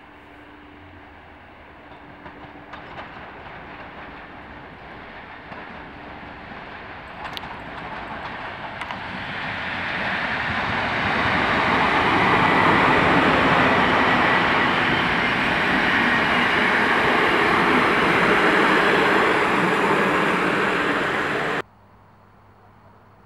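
Intercity passenger train hauled by an EP07 electric locomotive approaching and passing: a rumble that builds over several seconds, becomes loud about ten seconds in, and holds as the coaches run by on the rails. The sound stops abruptly near the end, leaving only faint background.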